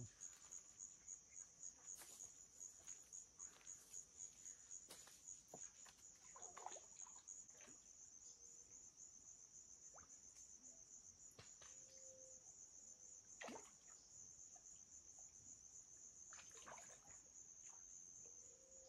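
Faint, steady high-pitched chirring of insects, pulsing rapidly and evenly, with a few soft clicks and rustles.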